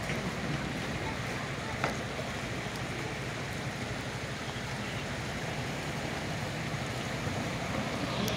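Steady wash of floodwater running across a flooded street, mixed with wind on the microphone, with a single sharp click about two seconds in.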